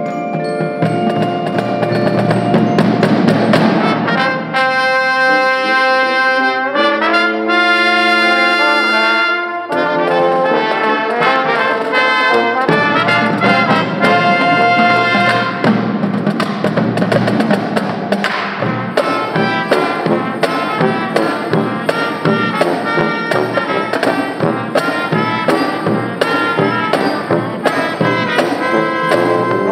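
Marching band playing a Christmas medley: trumpets, trombones and tuba carry the tune over snare, tenor and bass drums and marimba. Drums keep a steady beat through the second half.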